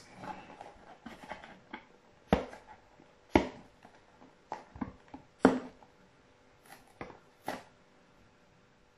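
Fingers handling a cardboard sticker display box and picking at its tear tab: faint rustling and scratching, with a few irregular sharp clicks and taps in the middle of the stretch.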